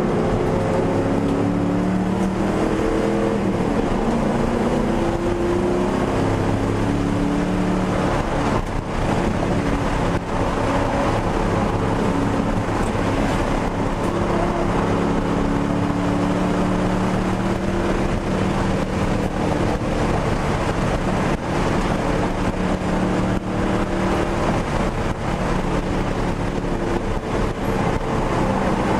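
1999 Ford Mustang GT's 4.6-litre V8 heard from inside the cabin under hard driving on track, its pitch climbing and falling again and again as the car accelerates, shifts and slows for corners.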